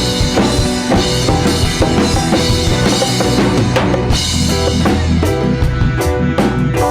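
Live band playing an instrumental passage of a song: a drum kit with kick and snare keeping a steady beat under sustained bass and guitar notes.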